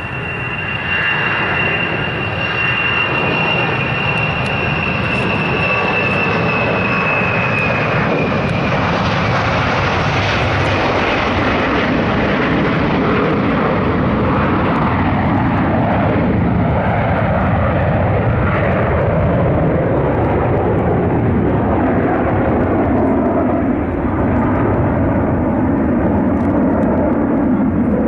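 Ilyushin Il-62 jet airliner's four rear-mounted engines at takeoff power, roaring continuously. A high engine whine slides slightly lower and fades over the first several seconds as the jet lifts off and climbs away. The roar then grows duller toward the end, its high end dying off while the low rumble continues.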